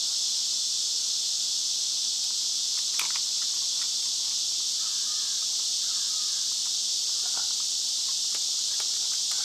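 Steady high-pitched buzzing of an insect chorus, with a sharp click about three seconds in and a few faint clicks and knocks later.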